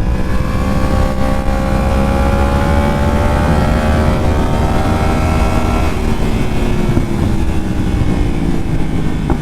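Yamaha R1's inline-four engine pulling on the throttle, its pitch climbing slowly for about six seconds, then the power comes off and the engine note falls as the bike slows. Heavy wind rumble on the rider's microphone throughout.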